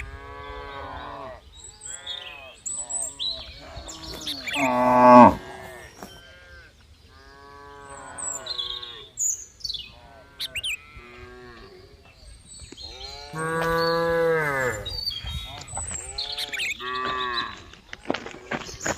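Several cows mooing over and over in short, overlapping calls, with one louder call about five seconds in and a longer, drawn-out moo about two-thirds of the way through.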